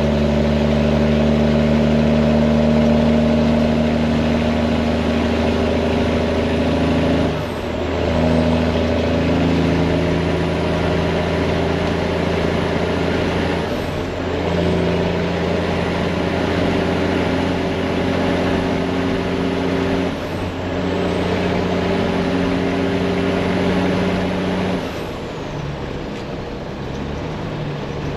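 Detroit diesel engine of a semi-truck pulling hard through loud pipes. The engine note breaks and steps to a new pitch four times, about every six seconds, as the driver shifts up through a manual transmission. A faint high turbo whistle rises and falls with each shift.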